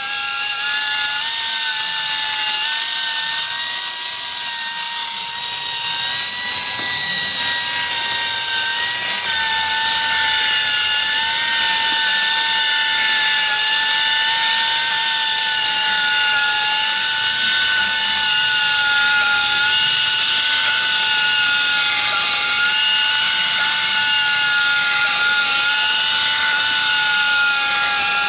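FABMAX pipe cutting and beveling machine running continuously, its rotating head's tool bits machining a bevel into a steel pipe end. A steady motor whine with slight wavers in pitch sits over a bright hiss of metal cutting.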